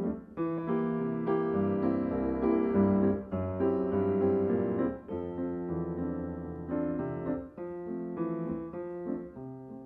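Piano music, chords and a melody.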